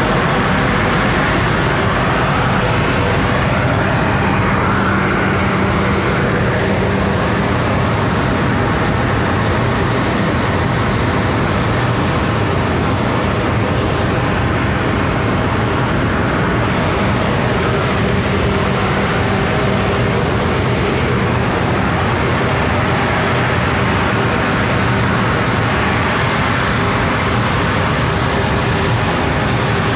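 Grain dryer plant machinery running: a loud, steady mechanical noise with an even low hum underneath, unchanging throughout.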